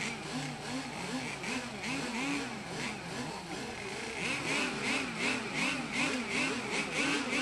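Small two-stroke gas engines of radio-controlled racing boats running, several at once, their pitch rising and falling in a steady wavering rhythm about twice a second.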